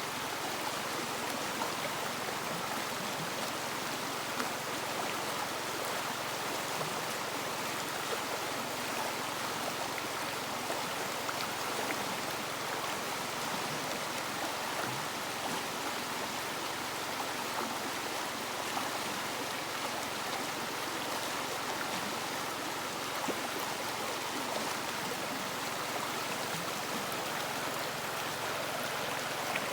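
River water rushing and splashing over stones in a steady, unbroken flow.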